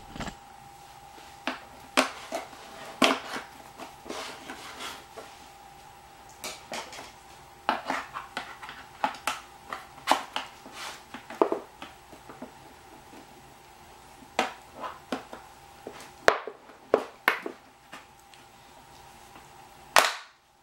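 Irregular clicks, taps and clacks of a screwdriver working screws out of a hard plastic housing, with tools knocking against the plastic and the wooden worktable. A faint steady hum runs underneath.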